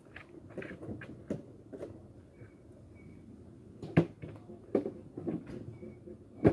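Irregular taps and knocks close to the microphone, two sharp louder ones about four seconds in and at the end, with a few faint short high chirps.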